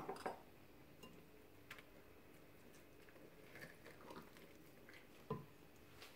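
Faint scraping and soft sticky sounds of a wooden spoon folding thick cake batter in a glass mixing bowl, with one short knock a little after five seconds in, the loudest sound.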